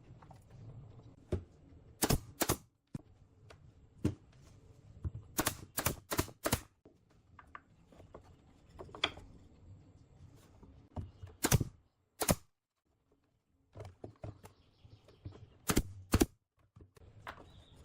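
Sharp clicks and knocks of work on wood, irregular: some single, some in quick runs of two to five, with pauses between.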